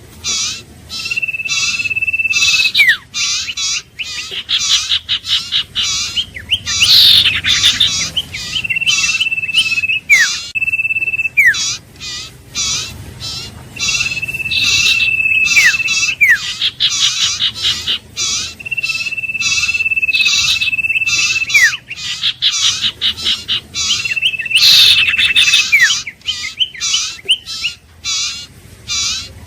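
Iora song: a long, steady, high whistle about one to two seconds long, ending in a quick downward slur and repeated about every five to six seconds. It is set over a fast, continuous run of short chirping notes.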